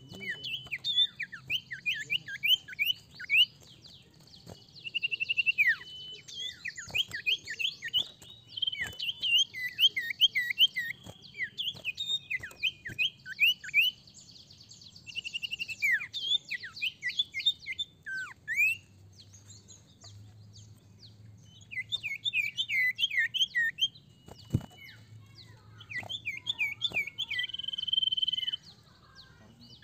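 Common iora (sirtu/cipoh) singing in quick runs of sharp, high, downward-sliding chirps and trills, broken by short pauses, with a single held whistle near the end. A single sharp click about 24 seconds in.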